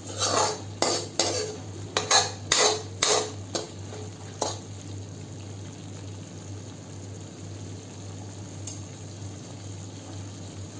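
Steel ladle scraping and stirring thick masala in a steel kadhai, about nine scrapes over the first four and a half seconds, then only a steady low hum. The masala has cooked until the oil separates.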